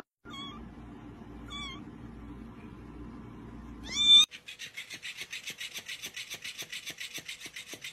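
A cat gives two short meows over a low steady hum, then a louder meow rising in pitch about four seconds in. After that comes a rapid, even rasping, about nine strokes a second.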